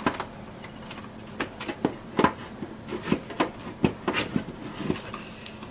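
Scattered light clicks and knocks as an HP Elite 8300 small form factor power supply is handled and aligned into its slot in the computer case.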